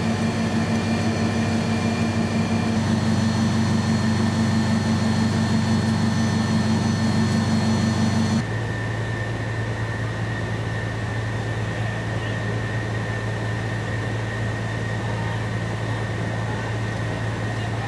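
Fire truck's diesel engine running steadily, a deep even hum. About eight seconds in it drops a little in level and loses its higher tone.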